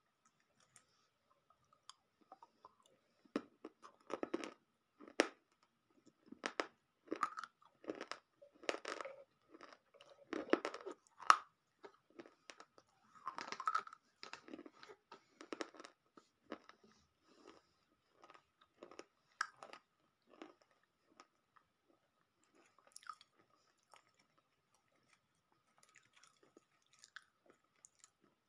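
Biting into and chewing broken pieces of baked terracotta clay pot close to the mouth: sharp crunches and grinding chews. They come thick and fast for the first half and thin out to scattered bites after about 16 seconds.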